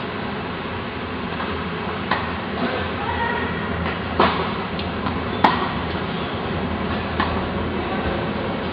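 Tennis balls being struck by rackets and bouncing on the court: about five sharp knocks at uneven intervals, the loudest about four and five and a half seconds in, echoing in a large indoor tennis hall over a steady background hum.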